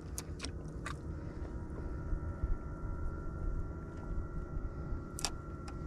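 Boat engine running steadily, a low hum with a thin steady whine above it, with a few sharp clicks near the start and near the end.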